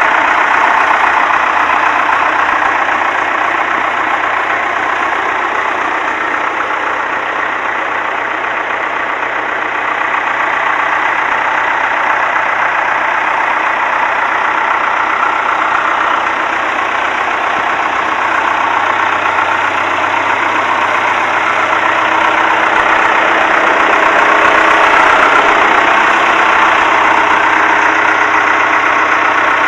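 Allis-Chalmers 816 backhoe's four-cylinder Perkins 248 diesel engine running steadily at idle, a little louder in the last third.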